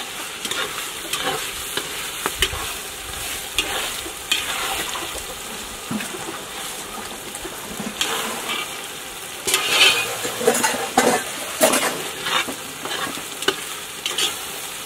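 Metal spoon stirring and scraping potato greens in a cooking pot over a wood fire, with a steady sizzle from the pot. The spoon's knocks against the pot grow louder and more frequent about two-thirds of the way through.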